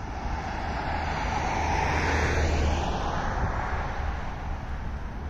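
Road traffic: a passing vehicle's noise swells to a peak about two seconds in and then fades, over a steady low hum.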